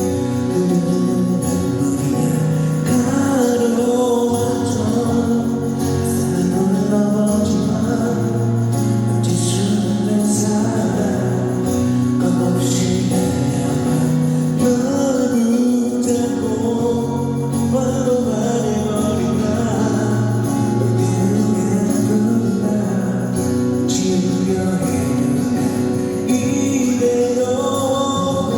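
Live pop song: a voice singing a melody over a band, with long held chords underneath.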